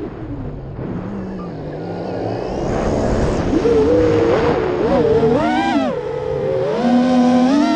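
Brushless motors and propellers of an Armattan Chameleon Ti FPV freestyle quadcopter, heard through its onboard camera. For the first three seconds or so there is a rushing sound over a low steady hum at low throttle. After that comes a multi-toned whine that rises and falls several times as the throttle is punched and eased.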